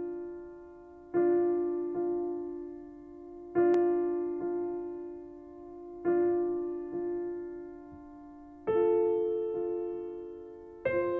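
Slow, soft piano music: the same low note or chord struck about every two and a half seconds and left to ring and fade, with a lighter note between strikes. A higher note joins about nine seconds in.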